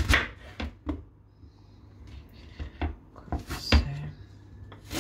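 Kitchen knife chopping turnip into cubes on a cutting board: an irregular string of sharp knocks as the blade strikes the board.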